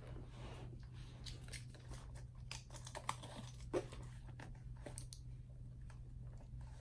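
Small items being stuffed back into a small pouch by hand: faint rustling with light clicks and taps, a few sharper taps about three and four seconds in.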